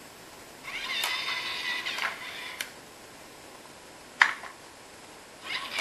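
Battery-powered LEGO DUPLO steam locomotive's small electric motor whirring for about a second and a half, then again near the end. Between the two runs come a few plastic clicks and one sharp, loud click about four seconds in, as the locomotive is handled.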